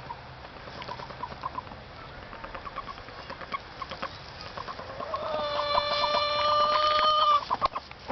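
Rooster making unusual calls: a run of quick short clucks, then about five seconds in one long, steady, high call held for roughly two seconds that stops abruptly, followed by a few more clucks.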